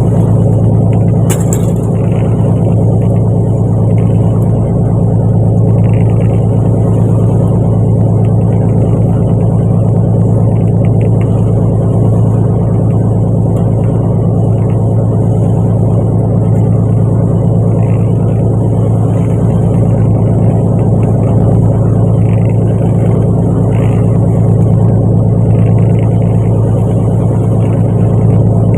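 Fishing boat's engine running steadily at constant speed, a loud, even low drone.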